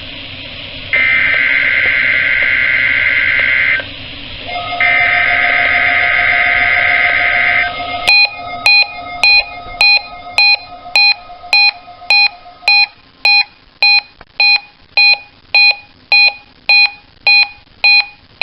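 NOAA Weather Radio SAME alert header: harsh digital data bursts about three seconds long, repeated with short gaps. A steady alarm tone comes in during the last burst and stops about two-thirds of the way in. From about halfway there are sharp beeps repeating about twice a second, marking the weekly test of the warning alarm.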